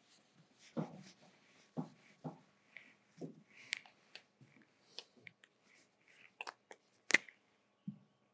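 Marker writing on a whiteboard: scattered short taps and squeaky strokes, with a sharper click about seven seconds in.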